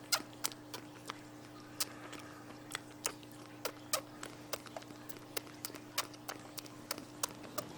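Baby cinnamon capuchin monkey sucking on a milk bottle: short wet clicks and smacks, irregular, about two a second.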